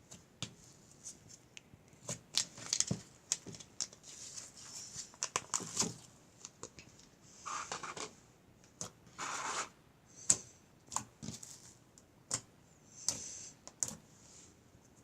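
Slime being squeezed and worked by hand: a run of irregular sticky clicks and pops, with a few longer squishes about halfway through and near the end.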